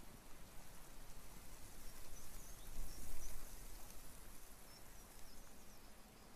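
Open-air ambience: wind noise with a low rumble that swells about three seconds in, and a few faint high bird chirps.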